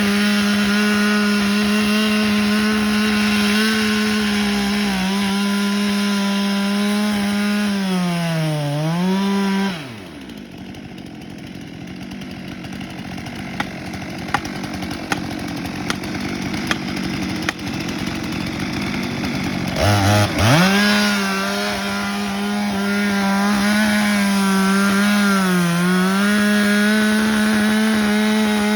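Chainsaw running at full throttle while cutting into a large birch, the engine pitch sagging briefly as the chain takes the load. It stops after about ten seconds, leaving a quieter stretch of rising hiss with a few sharp cracks, then revs up again at full throttle and keeps cutting, dipping under load once more.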